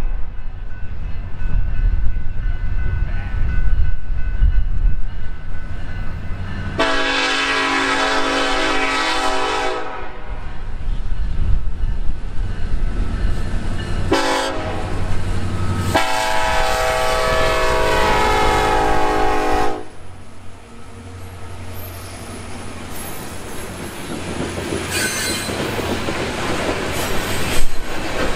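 Freight diesel locomotive horn sounding the grade-crossing signal as the train approaches: a long blast, a short one, then a final long one. After the horn the train's cars roll past with a clickety-clack of wheels over rail joints, and wheels squeal faintly near the end.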